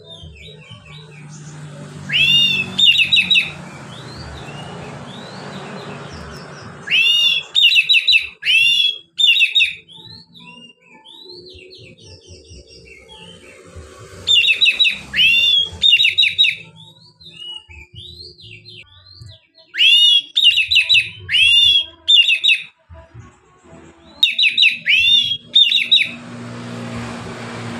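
Caged oriental magpie-robin (kacer) singing freely ('ngeplong'): loud, clear whistled phrases of quick rising and falling notes, given in bursts of a second or two about five times, with softer scattered notes between.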